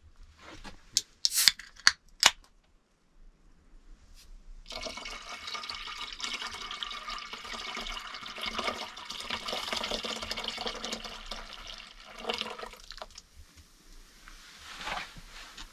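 A few sharp clicks and knocks in the first couple of seconds, then liquid poured from a can into an enamel pot: a steady splashing pour of about eight seconds that stops near the end, the drink foaming up in the pot.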